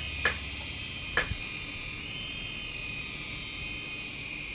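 Maslow CNC Z-axis gear motor running steadily with a high whine, turning an Acme lead screw that pulls the Bosch POF 1200 AE router body down toward its base. Two light clicks come in the first second or so.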